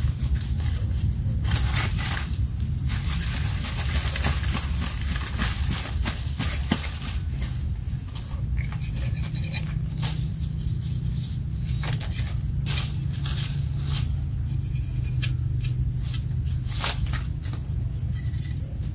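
Irregular rustling and crackling of dry leaves and twigs as a man handles sticks and cuts vegetation in forest undergrowth, over a steady low rumble.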